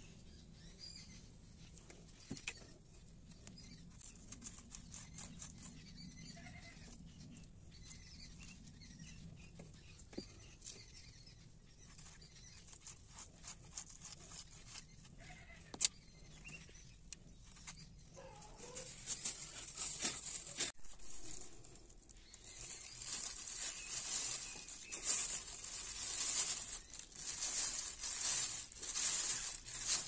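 A clear plastic bag rustling and crinkling in irregular bursts through roughly the last ten seconds as it is handled and pulled down over a lemon cutting. Before that there are only faint handling clicks, with one sharp tick about midway.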